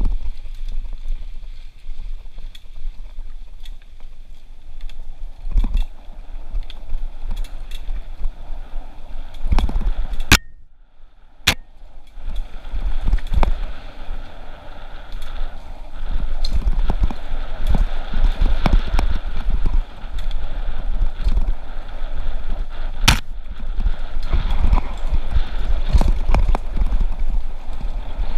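Mountain bike riding over dirt singletrack, heard from a camera mounted on the handlebars: a steady low rumble of wind and trail vibration on the microphone, with frequent sharp knocks and rattles as the bike jolts over bumps. About ten seconds in the sound briefly drops away between two sharp clicks.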